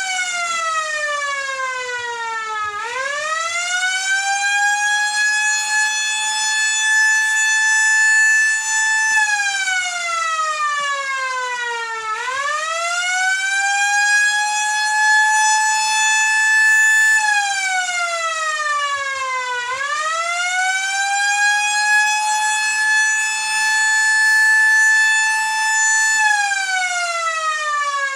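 Tornado warning siren sounding a wail: the pitch sweeps up, holds high for several seconds, then slides down, about three times. It signals a tornado warning.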